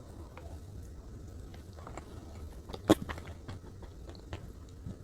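Close-up eating of salted caramel chocolate cake: soft chewing and wet mouth clicks. About three seconds in there is one sharp click, the loudest sound.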